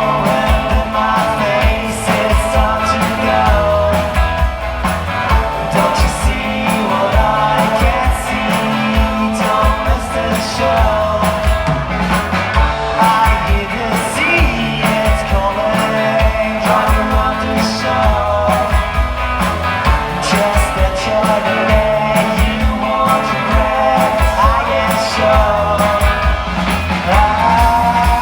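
Rock band playing a song: drums keeping a steady beat under bass and electric guitar, with a singer's voice.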